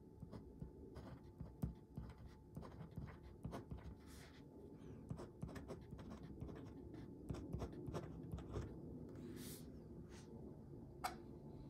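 Fine-nib Lamy 2000 fountain pen writing on dot-grid paper: a run of short nib scratches and ticks as letters are formed, with a couple of longer swishing strokes. A single sharp click comes near the end, after the writing stops.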